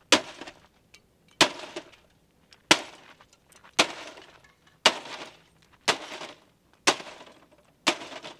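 A wooden baseball bat smashing a black plastic-cased electronic device, eight hard blows about one a second. Each is a sharp crack with a short clatter of breaking plastic and debris after it.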